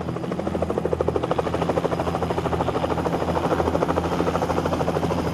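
Helicopter rotor blades chopping: a fast, even beat that swells in over the first moment and then holds steady and loud.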